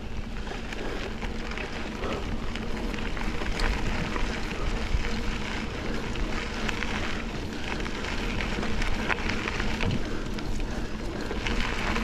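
Mountain bike rolling along a dirt double-track trail: steady tyre noise with many small crackles and rattles, and wind rumbling on the microphone.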